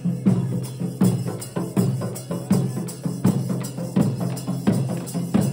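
Dollu Kunitha drumming: large Karnataka barrel drums (dollu) beaten in a fast, steady rhythm of about three strong strokes a second.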